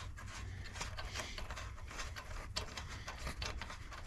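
Gloved hands working a nut off a steel trailer ball coupler: faint, irregular small metal clicks and rubbing, over a steady low rumble.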